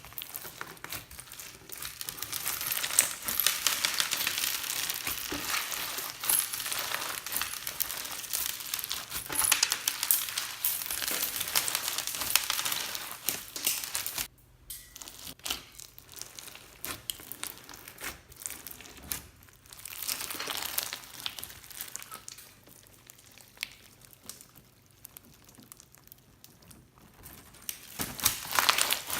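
Clear slime mixed with foam beads (floam) being kneaded and squeezed: dense crackling and popping. It breaks off briefly about halfway through, carries on quieter, then grows louder again near the end.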